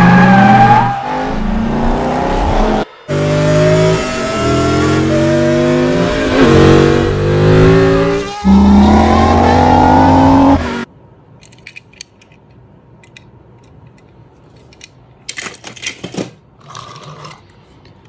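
Race car engines revving and accelerating, the pitch climbing in steps as if through gear changes, for about eleven seconds. After that it drops to quiet, with a few faint clicks.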